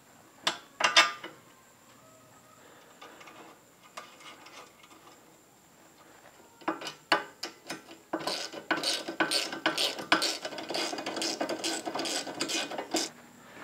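Ratchet wrench clicking as a small rack bolt and its nut are tightened. A few sharp metal clicks about a second in, then rapid, steady ratcheting from about seven seconds in that stops just before the end.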